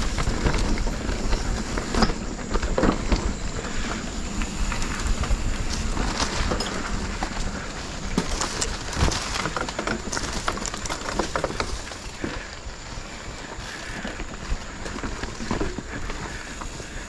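A Specialized Stumpjumper Evo Pro mountain bike ridden along a dirt trail: the tyres rolling over the ground and the bike rattling and clicking over rough spots. Wind rushes on the microphone throughout.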